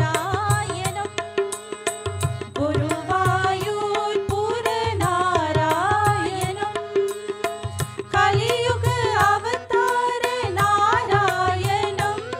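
Live Hindu devotional bhajan: tabla playing a steady rhythm under a harmonium, with a singing voice drawing out a long, ornamented, wavering melody.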